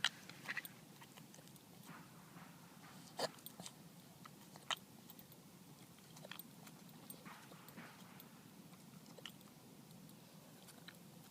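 Small Shorkie dog hiccuping: short, sharp hics at uneven intervals, about one to two seconds apart. The owner puts the hiccups down to the dog eating moss.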